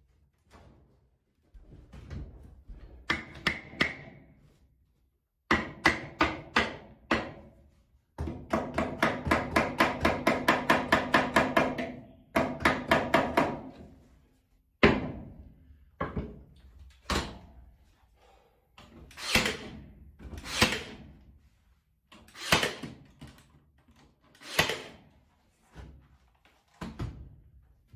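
Hammer blows driving nails into timber wall boards, including a fast run of about five strikes a second in the middle, with single sharp shots from a cordless nail gun fixing the boards later on.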